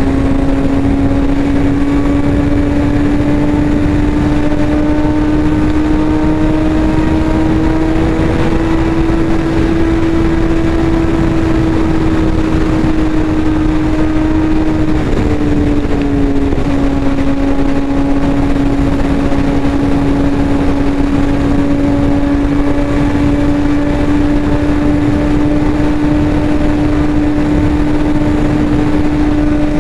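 Suzuki GSX-R 750 inline-four engine running at highway speed, its note rising slowly, dropping in pitch about halfway through, then holding steady and lower, with wind rushing over the microphone.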